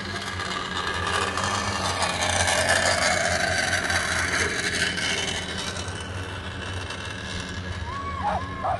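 Mechanical rushing whirr of a dog-racing lure being drawn along the track, swelling as it passes and fading away, over a steady low hum.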